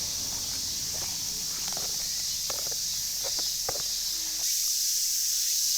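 Steady high-pitched chorus of summer insects, with scattered light clicks and rustles of movement; about four seconds in, the insect sound grows louder.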